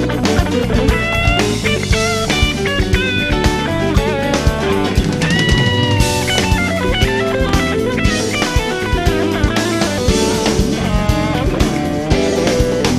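Background music: electric guitar with a rock drum kit keeping a steady beat, the guitar playing held and bending notes.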